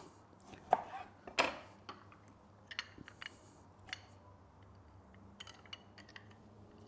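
A knife cutting limes in half on a plastic cutting board: two sharp knocks of the blade on the board in the first second and a half. After that come fainter clicks and taps as the lime halves are handled and set in a hand-held citrus press.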